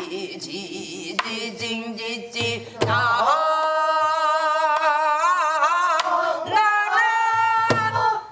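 A woman singing a Korean folk song in traditional style, holding long notes with a wide, wavering vibrato. The singing grows louder about three seconds in.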